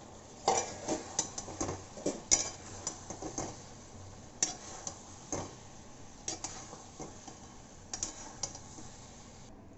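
Steel spoon clinking and scraping against a metal kadhai while soya chunks in thick gravy are stirred: a quick run of clinks in the first few seconds, then scattered ones.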